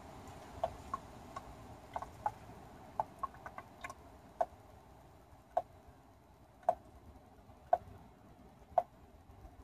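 Engine oil dripping from a Volvo's oil pan into a plastic drain pan: sharp ticks, irregular at first, then about one a second. The drain is slow because the oil filler cap is still on.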